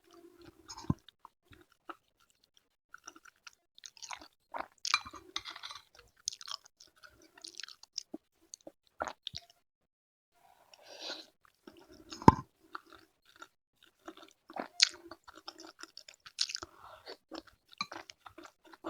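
A person eating a meal of sayur asem and fried tempeh close to the microphone: irregular chewing and crunching in bursts, with short pauses and one sharp crunch about twelve seconds in.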